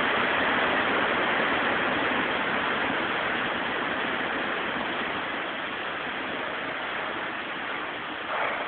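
Bulk load pouring out of a railcar upended in a rotary car dumper: a steady rushing noise that slowly fades, with a brief louder swell near the end.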